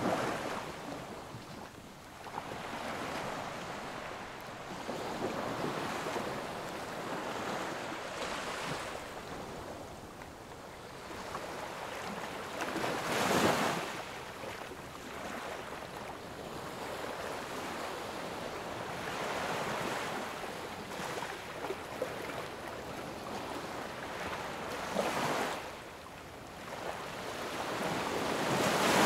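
Rushing water of the River Wye rapids, a steady noisy rush with wind buffeting the microphone in several louder swells, the strongest about halfway through.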